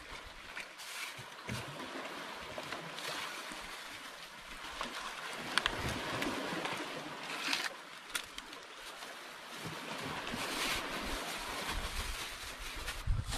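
Banana leaves and a plastic bag rustling and crinkling in bursts as they are folded and handled, over waves washing on the rocks.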